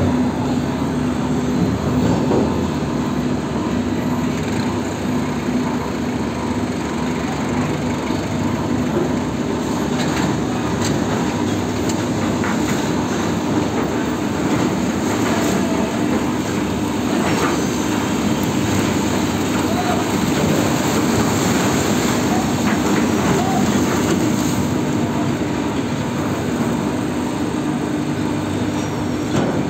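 Sugar-mill cane tippler and feeding machinery running with a steady mechanical hum and a constant low drone, as a loaded sugarcane trailer is slowly tipped; a few short clatters stand out above it.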